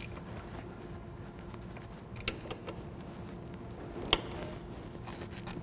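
Hand wrench working the oil drain plugs on an Indian Scout, breaking them loose for an oil change: sparse metallic clicks, one sharper click about four seconds in and a quick run of clicks near the end, with little sound between.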